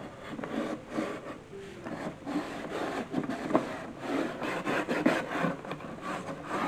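Damp cloth rag rubbing and scrubbing the bare wooden boards inside an antique trunk in irregular back-and-forth strokes, wiping off dirt.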